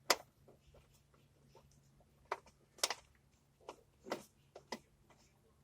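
Scattered light clicks and knocks of hand tools and parts being handled while an ignition coil is refitted in the engine bay, about six separate taps spread over a few seconds.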